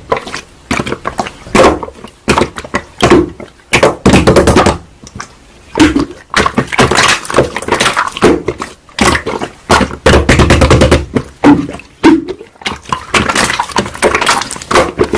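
Slime being squished and pressed by hand, with many quick, irregular pops and crackles.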